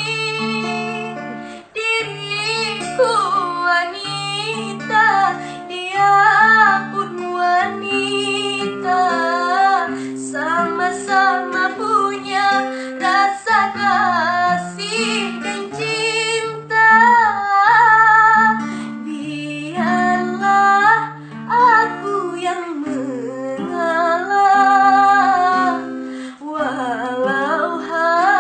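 A girl singing a melodic song with acoustic guitar accompaniment.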